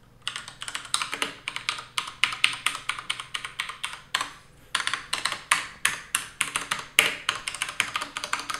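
Fast typing on a Max Keyboard Nighthawk mechanical keyboard with Cherry MX Red switches: rapid runs of key clacks, with a brief pause about four seconds in.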